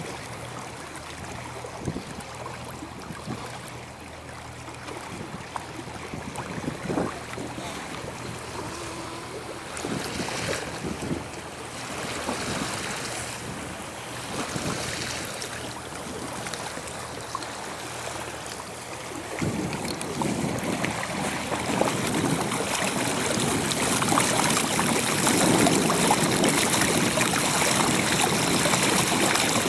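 Water rushing and splashing along a sailboat's bow as it sails, with wind buffeting the microphone; the rush of water grows louder in the second half. A few short knocks in the first half.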